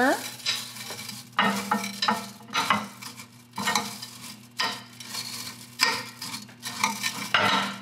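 A metal utensil stirring and scraping semi-sweet chocolate chips and coconut oil in a ceramic bowl, in short scrapes about once a second; the chips are still mostly unmelted after a first 30 seconds in the microwave at half power.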